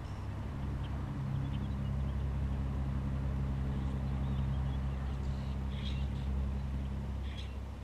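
A motor vehicle's engine running at a steady low pitch, growing louder and then fading near the end, with a few short bird chirps over it.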